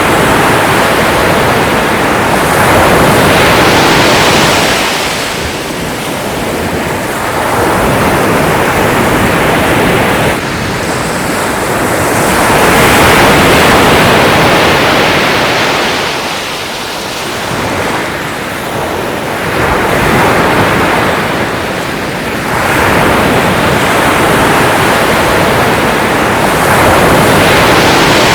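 Sea waves breaking and washing on the shore, the surf swelling and falling back in repeated surges a few seconds apart.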